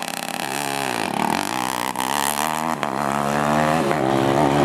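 Engine of a Postman Pat van-bodied drag car accelerating hard down the drag strip, its pitch dipping and climbing again twice.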